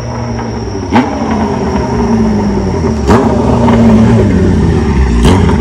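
Kawasaki Zephyr 750's air-cooled inline-four running at idle through a short aftermarket exhaust with a brass silencer. The throttle is blipped three times, about a second in, about three seconds in and near the end, each rev starting sharply and falling back to idle.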